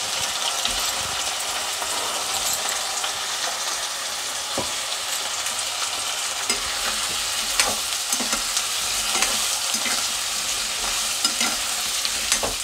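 Cubed potatoes sizzling in hot oil in a kadhai, a steady hiss. In the second half a metal spatula knocks and scrapes against the pan as the potatoes are stirred, giving frequent sharp clicks over the sizzle.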